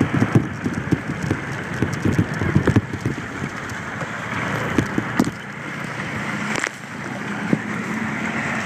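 Moped riding noise: wind rushing over a handheld phone's microphone with the scooter's engine and tyre noise, and a run of low knocks and bumps in the first three seconds.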